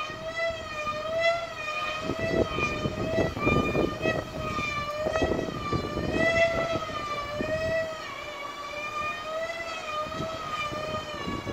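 Loud drone of a Bermuda kite's hummer vibrating in the wind: one steady buzzing tone that wavers slowly up and down in pitch. Gusts of wind rumble on the microphone from about two seconds in.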